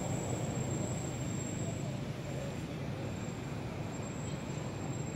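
Steady low background rumble with a thin, steady high-pitched whine above it.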